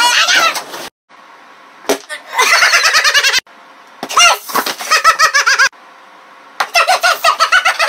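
High-pitched shrill vocal cries in four loud bursts, with a sharp crash about two seconds in.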